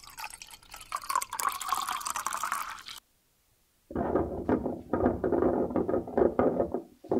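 Water being poured, its pitch rising as it runs, cut off abruptly about three seconds in. After a second of silence a dense, low rattling clatter starts and runs until just before the end.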